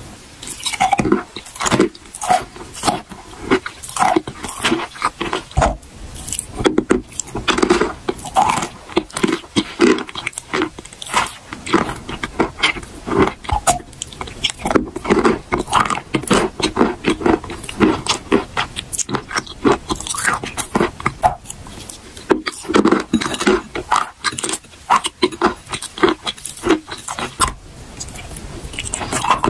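A block of chalk coated in wet Cambrian clay paste being bitten and chewed close to the microphone: a continuous run of crisp crunches mixed with wet, sticky mouth sounds.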